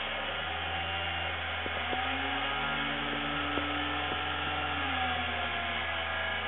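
Two small DC motors spinning with a steady whine whose pitch slowly drifts down and up as their speeds change, with a few light clicks. Their speeds follow EEG attention and meditation readings.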